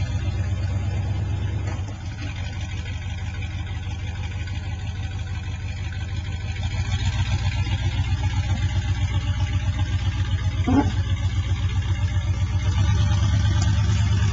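1980 Ford F-150's 351M V8 engine running with an even, pulsing beat just after being started, pulling a boat trailer up out of the lake. It gets louder about seven seconds in and again near the end as it works harder.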